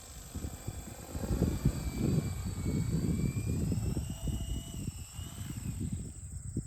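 Small electric radio-controlled Kyosho Hyperfly helicopter, which has no tail rotor, flying. Its motor whine wavers up and down in pitch over a gusty low rumble.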